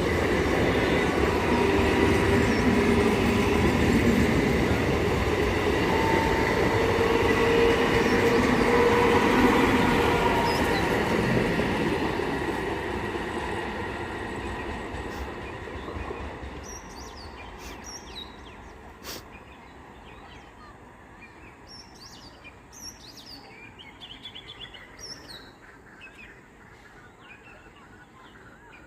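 A train running past on the rails, loud for the first ten seconds or so, then fading away over several seconds. Once it has gone, birds chirp, with a single sharp click partway through.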